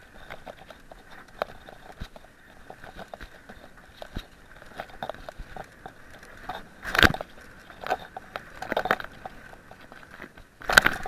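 Mountain bike rolling down a dry dirt singletrack: tyres crackling over dry leaves and the bike rattling with frequent small knocks, the loudest jolts about seven seconds in and again near the end.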